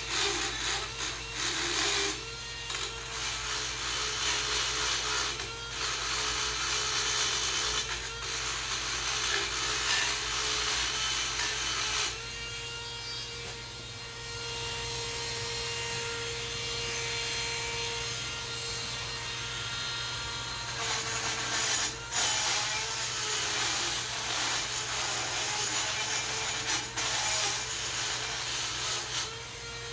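Handheld Dremel rotary tool running at high speed, its whine dipping and wavering each time the bit is pressed onto the brake hardware's metal contact points to clean them, with a gritty scraping; for a stretch in the middle it runs free with a steadier, quieter whine.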